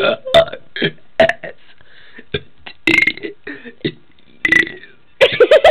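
A person burping the alphabet, letter after letter: a run of short, sharp burps spaced irregularly, with a louder, longer pitched burp near the end.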